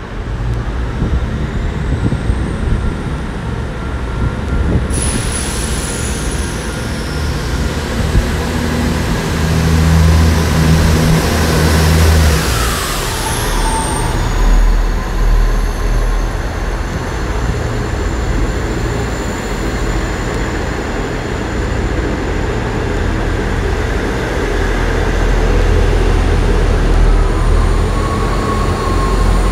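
A South Western Railway Class 159 diesel multiple unit, two units coupled, pulling out and passing close by under power. Its underfloor diesel engines rumble and the wheels run on the rails. The engine note is strongest about ten seconds in.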